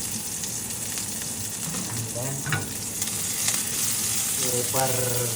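Fenugreek (methi) saag frying in hot oil in a pan, a steady sizzle as the greens are stirred.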